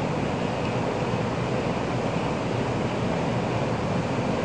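Steady rumble and rush of a Tokaido Shinkansen train running at speed, heard from inside the passenger cabin.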